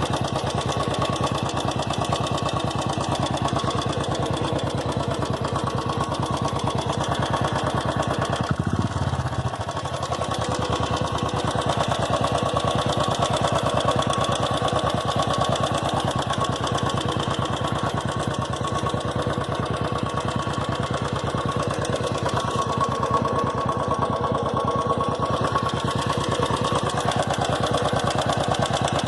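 Royal Enfield Classic 350's single-cylinder engine running steadily with the persistent 'tik tik' clicking from the engine that the owner finds unusual and irritating; the service centre called it normal.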